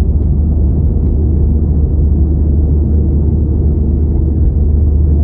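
Airbus A320 cabin noise in flight: a steady, loud low rumble of jet engines and rushing air, heard from inside the cabin.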